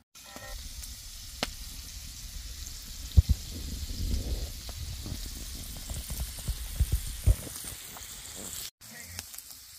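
Food sizzling steadily as it fries in a cast-iron pan, with a few low knocks, the loudest about three seconds in.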